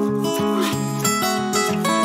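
Background music led by acoustic guitar, plucked notes changing every fraction of a second.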